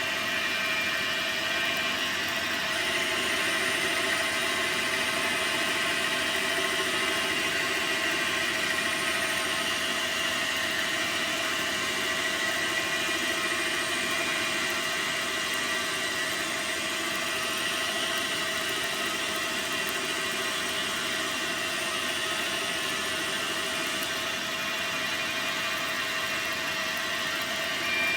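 Dyna Mechtronics DM3000 CNC lathe running steadily as it turns a test part, with a constant whine from its motors over a dense hiss.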